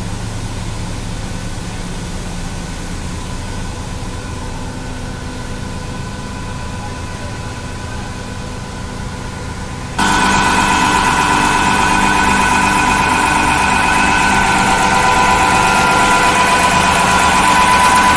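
Steady industrial machinery hum with a few constant whining tones. About halfway through it cuts suddenly to a louder sound: a Lynx HP52110 high-pressure triplex plunger pump and its electric motor running steadily under pressure, with a strong steady whine.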